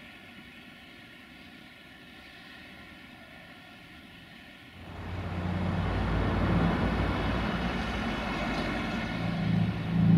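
Faint, steady distant train rumble. About five seconds in it gives way suddenly to a loud rumble with a low, steady engine drone: a diesel locomotive approaching.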